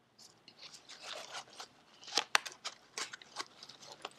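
Gloved hands handling an Ictotest kit and its absorbent test pad: scattered small rustles and crinkles, with a few sharp clicks about two seconds in.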